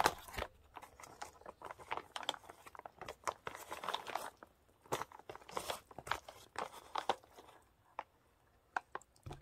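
Foil-lined freeze-dried meal pouch crinkling and crackling as it is handled and opened, in irregular bursts that thin out near the end.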